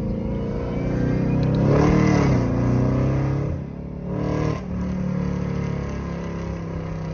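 2010 Camaro SS's 6.2-litre V8 through a Borla ATAK exhaust, revving up and settling back about two seconds in, giving a short second rev about four seconds in, then running steadily.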